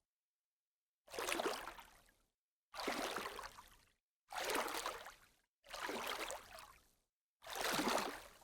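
Water splashing in five separate splashes, each about a second long, separated by dead silence.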